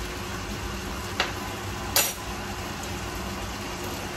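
Two metal clinks of a fork against cookware, about a second in and again at two seconds, the second louder with a short ring. A steady kitchen ventilation hum runs underneath.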